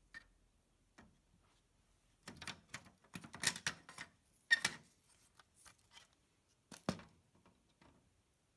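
Light plastic clicks and rattles from a 1970 Hot Wheels Tune-Up Tower as its elevator unit is worked free and lifted out. There is a cluster of taps from about two to five seconds in, the loudest near the middle, and one more click near seven seconds.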